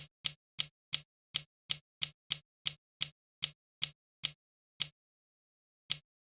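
Metal gears clicking as they turn: sharp single clicks, about three a second, with the gaps growing longer in the last couple of seconds.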